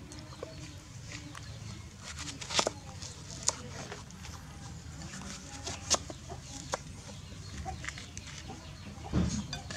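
Kitchen knife slicing through watermelon on a round wooden cutting board, with several sharp knocks as the blade hits the wood and a low thump near the end.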